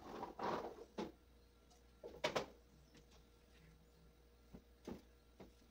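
A short rustle near the start, followed by a few separate soft knocks and clicks spaced out over several seconds.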